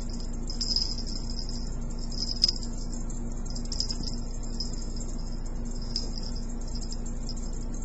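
A small bell jingling in a few short bursts, with one sharp tick about two and a half seconds in, as a kitten darts about at play, over a steady low electrical hum.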